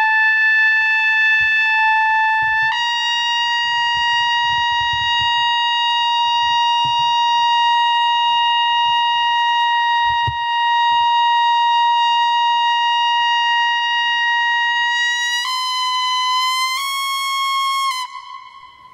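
Solo trumpet playing long held high notes. One note sounds for a couple of seconds, then a slightly higher note is held for about thirteen seconds, then it steps up twice briefly and stops shortly before the end.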